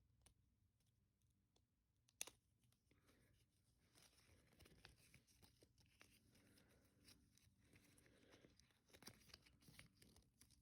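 Faint crinkling and tearing of packaging being handled, with a single sharp click about two seconds in.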